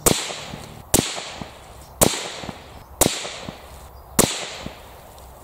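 Accuracy International AT-X rifle in 6.5 Creedmoor firing five shots about a second apart, each sharp report echoing away over most of a second.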